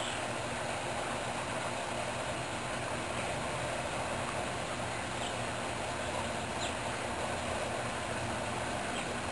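Steady outdoor background noise, like distant traffic, with a few faint, brief high bird chirps scattered through it.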